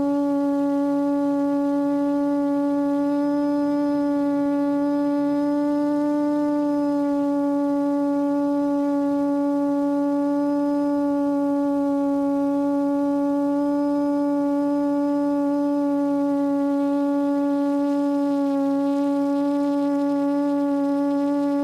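QAV400 quadcopter's four Lumenier 1100kv brushless motors spinning APC 8x4.5 propellers, heard from the onboard camera: a steady droning whine that holds one pitch, dipping slightly near the end.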